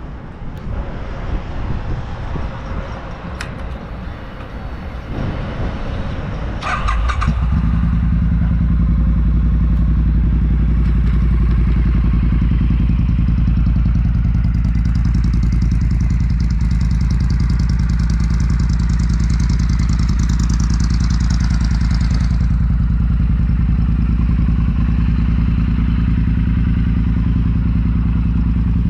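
2019 Triumph Bonneville T100's 900 cc parallel-twin engine, breathing through aftermarket Predator Pro silencers and a Tamarit X-pipe, starting about seven seconds in after a few clicks, then idling steadily and loudly.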